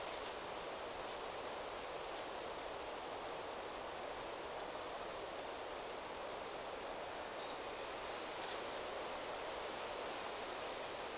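Wind rustling through forest trees as a steady hiss, with faint, high, short bird chirps scattered through it.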